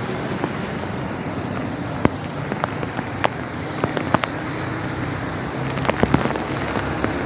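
Rain on a wet city street: a steady wash with sharp, irregular taps of drops and drips scattered throughout, over the hum of nearby traffic.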